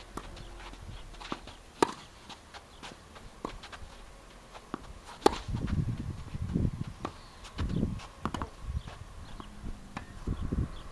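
Tennis rally: a ball struck by rackets and bouncing, heard as sharp pops a few seconds apart, the two loudest about two and five seconds in. Between the hits come the player's footsteps on the court, shuffling from about five seconds in.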